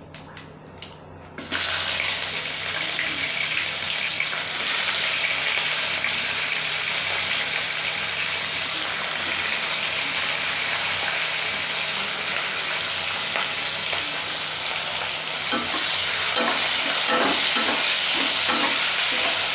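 Sliced onions hit hot mustard oil and whole spices in a kadhai, setting off a sudden, steady sizzle about a second and a half in. Near the end a spatula stirs the onions, knocking and scraping against the pan.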